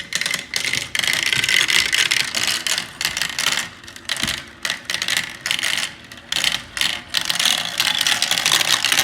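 Several marbles rolling and clattering down a marble run track: a continuous rattle of many quick clicks that swells and dips as they go.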